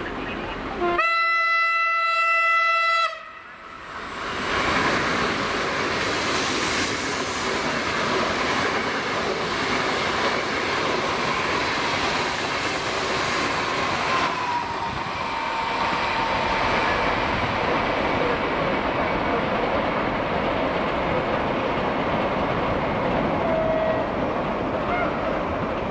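A Siemens Velaro RUS (EVS1 Sapsan) high-speed electric train sounds one horn blast of about two seconds, then rushes through at speed with a loud, steady noise of wheels and air that goes on for the rest of the time.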